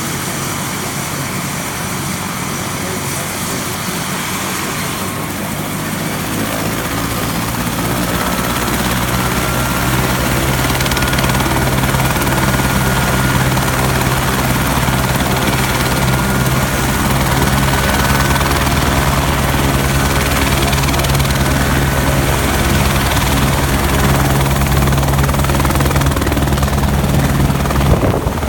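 Helicopter's engine and main rotor running up: the rotor's even beat and a faint high whine grow louder over the first ten seconds or so, then hold steady at speed.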